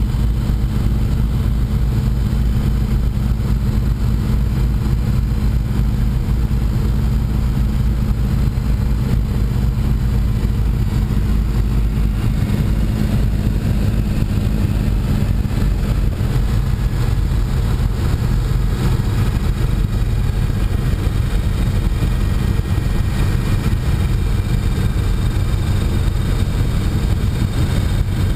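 Ford Trimotor's three radial engines droning steadily with propellers turning, heard from inside the cockpit on final approach to the runway. The low engine tone shifts slightly about halfway through.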